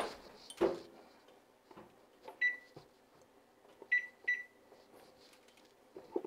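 A knock near the start, then three short single-pitch beeps from a GE Profile electric range's touch keypad as the oven timer is keyed in.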